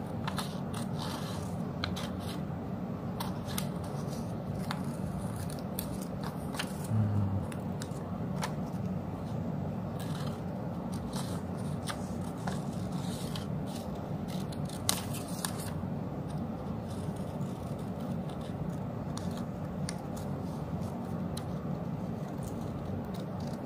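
Scissors snipping through bond paper in many short, irregularly spaced cuts.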